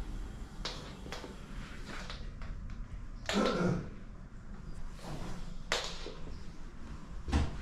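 Scattered light clicks and knocks in a small room: footsteps and handling noise from someone walking through an apartment with a camera, the loudest knock a little over three seconds in and another near the end.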